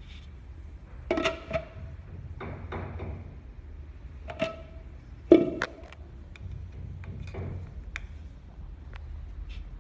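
Sharp handling knocks and clicks of a hard plastic beacon lens cover being set and fitted onto its base, a few louder knocks with a short ring and lighter ticks between.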